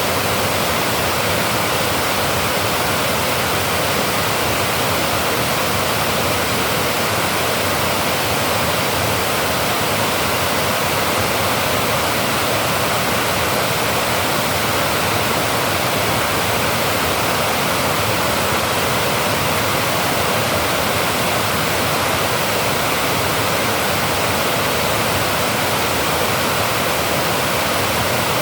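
Water pouring from a dam, a steady loud rushing with no change.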